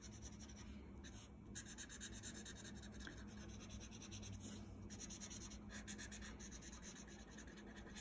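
Felt-tip marker scratching and rubbing on paper in quick short strokes, colouring in; faint.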